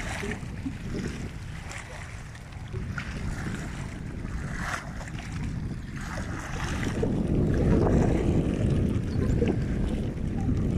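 Wind buffeting the microphone with a steady low rumble, over small waves lapping and splashing against a rocky lake shore; the wind gusts louder about two-thirds of the way through.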